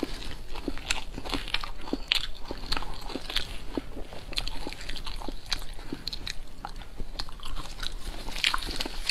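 Close-miked chewing of food: a steady run of irregular crunches and wet mouth clicks, a few per second.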